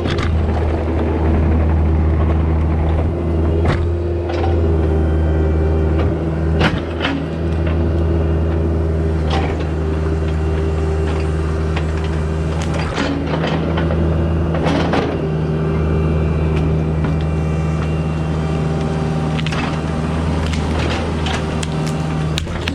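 Diesel skid steer loader running steadily under load: a constant engine drone with irregular clanks and knocks.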